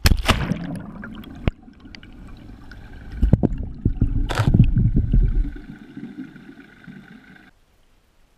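Water splashing and sloshing around a GoPro as the pole-mounted camera plunges through the surface, heard muffled through the camera housing, with several knocks and gurgling. It drops suddenly to near silence about a second before the end.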